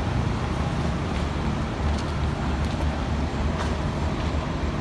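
Street traffic: car and motor scooter engines giving a steady low rumble, with a few faint clicks.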